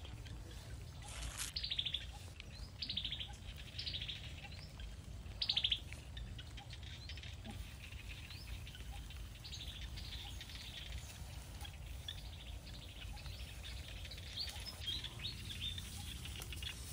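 Birds calling: four short, falling, trilled notes in the first six seconds, then softer scattered chirping, over a low steady rumble.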